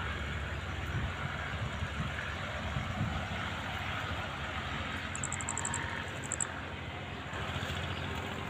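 Outdoor background noise: a steady low rumble. A little after five seconds in, a short, high, rapidly pulsing trill comes twice.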